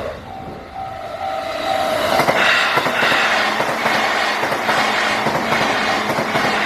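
A Japanese level-crossing alarm rings in repeated electronic dings. From about two seconds in, a JR Nambu Line electric commuter train passes through the crossing, its wheels loud on the rails.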